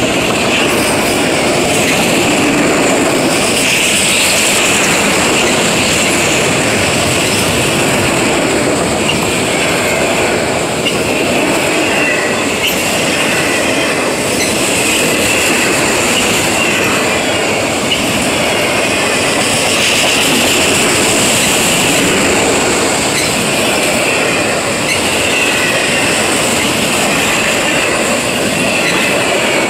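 Freight train of autorack cars rolling steadily past at close range: a continuous rumble and clatter of steel wheels on rail, with high, wavering squealing tones from the wheels.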